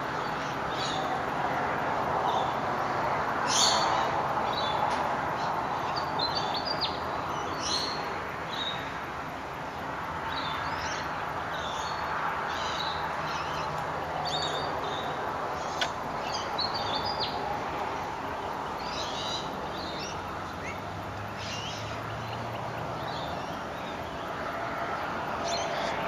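Many birds chattering at sunrise: short chirps and whistles scattered all through, over a steady background noise, with one sharp click about two-thirds of the way through.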